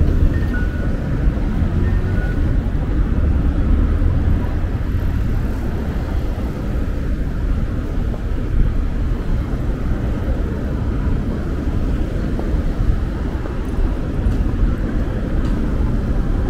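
City street ambience: a steady low rumble of road traffic, with a few short two-note electronic beeps in the first couple of seconds.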